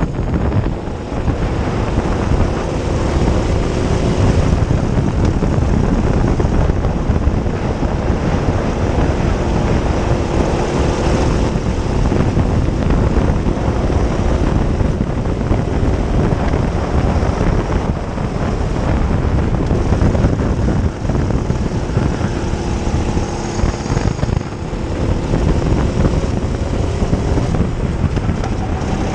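Hire kart's engine running hard at racing speed, heard from onboard, its note drifting up and down through the lap, under heavy wind buffeting on the microphone.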